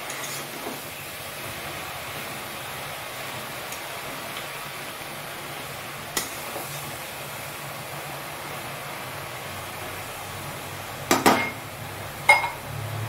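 Metal spatula knocking and scraping in a steel wok of frying giant taro pieces: a couple of light clinks in the first half, then louder clanks near the end, one ringing briefly. A steady hiss runs underneath.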